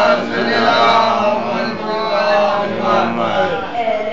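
A boy's voice chanting a munajat, a devotional supplication, in long held notes that bend slowly in pitch.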